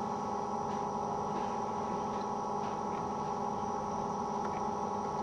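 Steady electrical hum made of several fixed tones, holding level throughout with no other distinct sounds.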